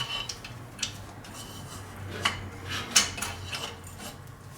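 Hand tools clinking and scraping on metal engine parts as a turbocharger is worked loose from its oil drain, with a few sharp clinks over quieter rubbing and a faint low hum underneath.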